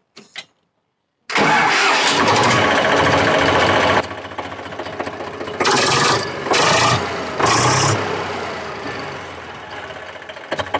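Eicher 485 tractor's three-cylinder diesel engine cranking and catching about a second in on the first try. It runs, is given three short blips of throttle in the middle, and settles toward idle. It starts readily now that its stuck inlet tappets have been reset, the fault behind its hard starting and white smoke.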